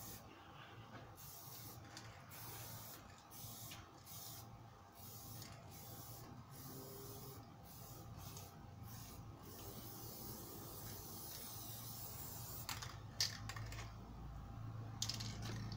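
Aerosol spray paint can hissing in repeated short bursts as it is sprayed on wood, with a few sharp clicks near the end.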